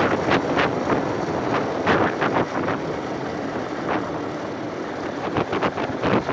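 Wind rushing over the microphone of a moving motorcycle in frequent short gusts, with the bike's running and road noise underneath.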